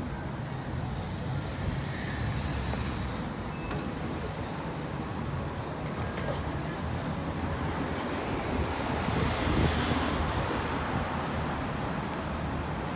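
City street traffic noise heard from a moving bicycle: a steady low rumble of passing vehicles that swells about two-thirds of the way through.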